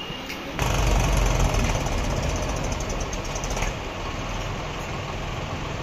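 Farm tractor's diesel engine running. About half a second in it revs up sharply with a loud, even firing beat, then settles back to a steadier run after about three seconds.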